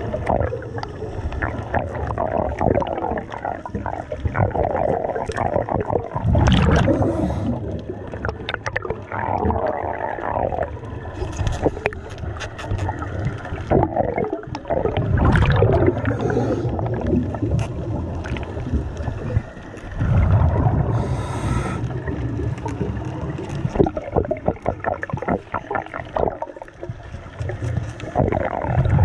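Underwater sound around a diver: bubbling and gurgling of air and water, with scattered sharp clicks and a brief hiss about twenty seconds in.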